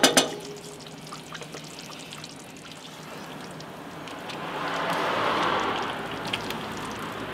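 Wooden spoon stirring cooked rice into a thick, wet pork and onion stew in a cast-iron Dutch oven. The stirring noise is soft at first, then swells louder for a couple of seconds about four seconds in.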